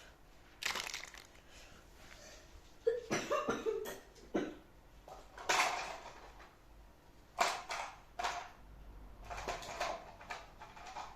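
Small objects being handled: a series of short rustles and clatters, about eight in all, spread irregularly.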